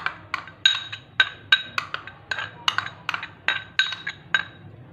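A spoon clinking quickly and repeatedly against a dish as yogurt is spooned into a bowl, about four light strikes a second, each with a short ring. The clinking stops near the end.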